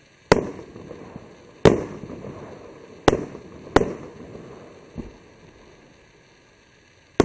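Automatic firework cake firing aerial shots: four sharp bangs in the first four seconds, each followed by a fading echo. A fainter pop comes about five seconds in, and a rapid cluster of bangs right at the end.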